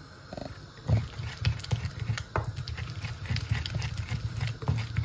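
Wooden pestle grinding pepper and onions against the ridged inside of a clay asanka bowl: irregular rubbing thuds and knocks, several a second, with the sharpest knock about a second in.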